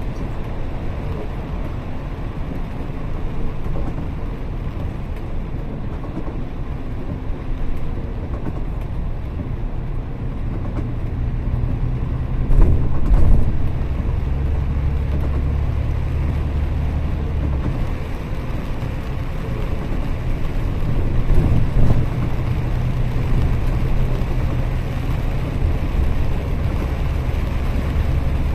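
Bus running on a wet road, heard from inside: a steady low engine drone with tyre and road noise, the drone growing stronger about ten seconds in. A brief knock about twelve seconds in is the loudest moment.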